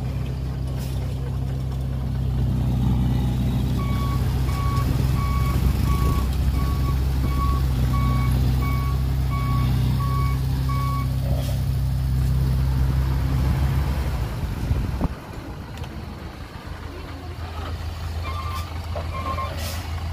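Heavy diesel dump truck engine running steadily while a reversing alarm beeps at an even pace for several seconds. About three-quarters of the way through, the engine's low note drops away suddenly, leaving quieter machinery, and beeping starts again near the end.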